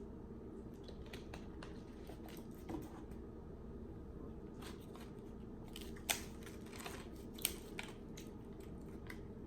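Quiet eating sounds: scattered soft clicks and crunches of chewing, with two sharper clicks in the second half, over a steady low hum.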